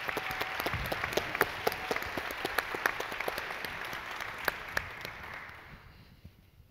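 Audience applauding, many hands clapping with some sharper single claps standing out, dying away near the end.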